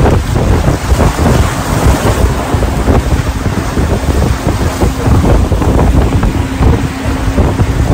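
Strong wind buffeting the microphone, a loud fluttering rumble, with a faint steady hum joining about three seconds in.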